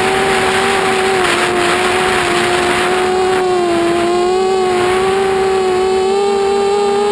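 Mini FPV quadcopter's brushless motors and propellers whining in flight, picked up by the onboard camera, over a hiss of air. The pitch holds steady, dips a little about four seconds in and rises again near the end as the throttle changes.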